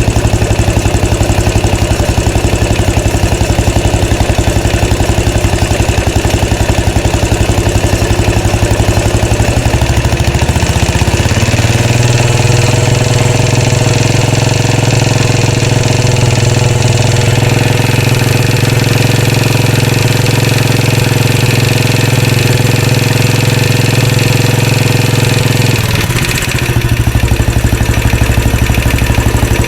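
Royal Enfield Classic 500 single-cylinder engine idling with a steady, even beat. About eleven seconds in it is run up to a higher speed and held there, then drops back to idle near the end.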